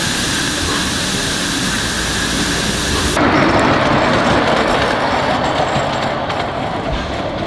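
Live-steam miniature locomotive hissing steam steadily. About three seconds in, this cuts abruptly to the duller running noise of a miniature ride-on passenger train on its track.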